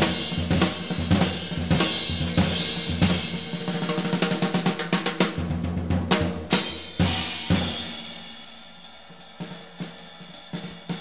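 A jazz drum kit playing an improvised passage: snare, toms and bass drum hits under cymbals and hi-hat. The playing grows quieter and sparser in the last few seconds.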